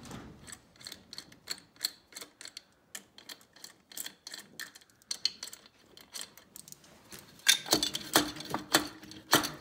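Irregular light metal clicking and tapping as the cylinders of a Rotax 583 two-stroke snowmobile engine are rocked by hand, with several louder ringing metal clanks about three quarters of the way through. The cylinder is still stuck and won't lift off its studs.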